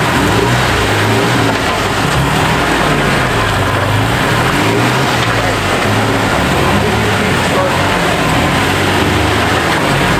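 Toyota pickup truck's engine running under throttle as it crawls over deep ruts, the revs rising and falling every second or so.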